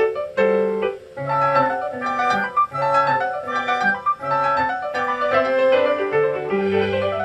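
Classical piano music played live: a concert piano sounds a quick run of notes over deep bass notes.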